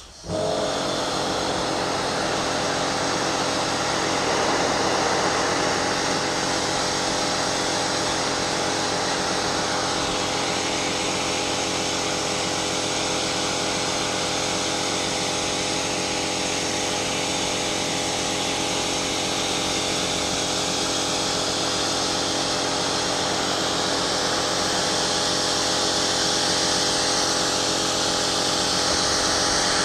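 Kärcher K5 Premium Home electric pressure washer cutting in abruptly, then running steadily, its motor and pump humming under the hiss of the high-pressure water jet.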